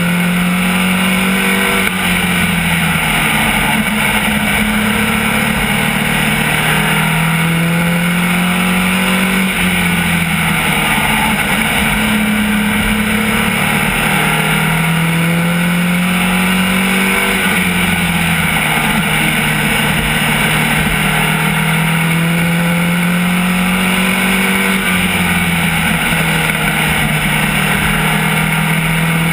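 SK Lite modified race car's engine at racing speed, heard from inside the cockpit over a steady rush of noise. Its pitch climbs along each straight and drops sharply lifting off for the turns, about every seven to eight seconds, lap after lap around a short oval.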